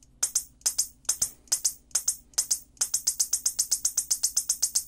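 Whelen Edge strobe power supply firing its strobe tubes, each flash a sharp high tick. The ticks come in double-flash pairs, then about three seconds in an even, faster run of about eight a second, the added rapid-rate pattern, before going back to pairs.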